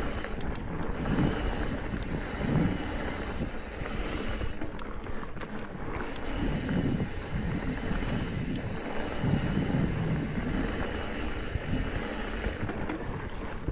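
Mountain bike ridden over dirt singletrack: wind buffeting the action-camera microphone over the rumble of the tyres, with a few sharp clicks from the bike.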